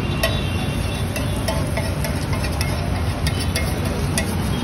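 Flat metal spatula scraping and tapping on a large iron griddle in short, sharp clicks, over a steady low rumble.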